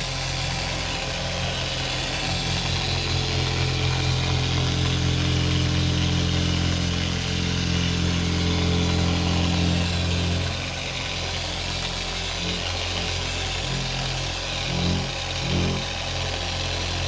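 Electric car polisher running steadily with a foam pad, working wax over a plastic headlight lens. Its hum changes and turns rougher about ten seconds in, with a couple of brief swells near the end.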